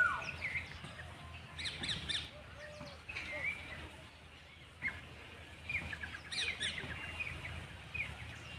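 Birds chirping and calling: a loud falling call right at the start, then bursts of quick high chirps about two seconds in and again past six seconds, over a faint low hum.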